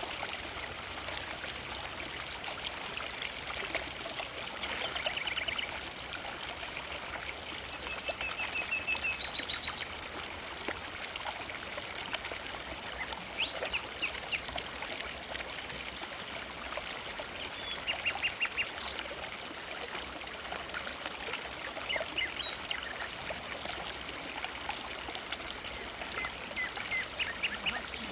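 River water flowing steadily, with a bird giving short, rapid series of chirps every few seconds.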